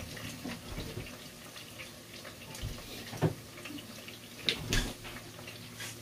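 Kitchen sounds at the stove: a steady watery hiss with a sharp knock of cookware about three seconds in and two more about a second and a half later.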